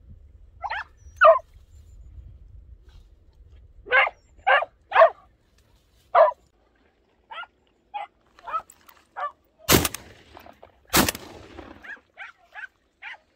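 Podenco hunting dogs yelping and barking in short, high calls: a run of loud yelps, then fainter ones. Near the end, two gunshots about a second apart, each with a short echo, are followed by a few more faint yelps.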